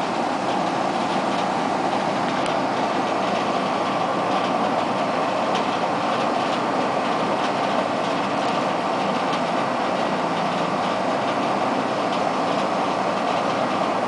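Homemade hydrogen–air torch burning steadily, a continuous rushing hiss with faint scattered crackles. The hydrogen comes from aluminium reacting with sodium hydroxide, and air is pumped in by an aquarium pump.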